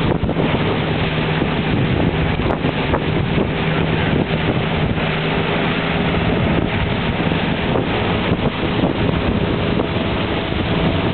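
Motorboat under way: wind buffeting the microphone over the steady hum of the boat's engine and the rush of water along the hull and wake.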